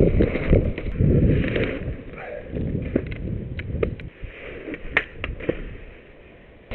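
Uneven low rumbling and buffeting on a small camera's microphone from wind and handling, loudest in the first couple of seconds, with a few sharp clicks and scrapes later on.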